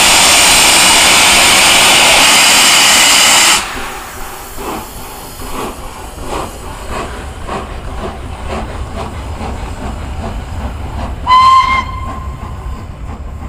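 Three-cylinder steam locomotive LNER Peppercorn A1 60163 Tornado pulling away: a loud hiss of steam from the open cylinder drain cocks stops abruptly about three and a half seconds in, followed by a regular beat of the exhaust chuffing. A short, high whistle blast sounds near the end.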